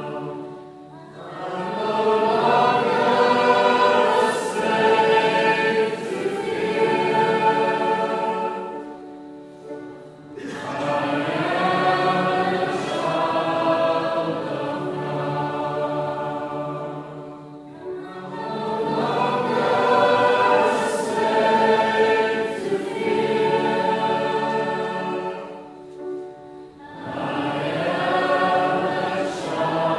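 A choir singing a worship song in long phrases of about eight seconds, with a brief dip between phrases.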